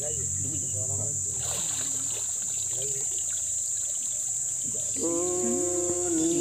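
Water splashing and running off as a person is raised out of a pond after full-immersion baptism, over a steady high-pitched insect drone. Near the end a voice holds a long, steady note.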